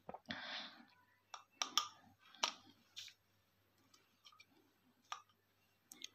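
Hands handling a plastic bulb holder, its wires, a bulb and a plastic cap: a short rustle near the start, then a scatter of light clicks and taps.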